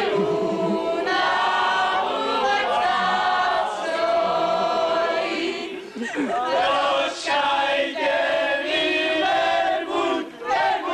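A mixed group of young men and women singing a folk song together at full voice, with a brief pause about six seconds in before they carry on.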